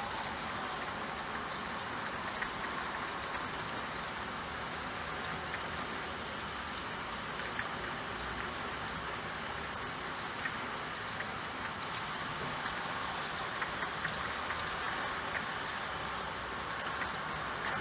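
Steady rain, an even hiss with scattered sharp ticks of single drops striking a surface.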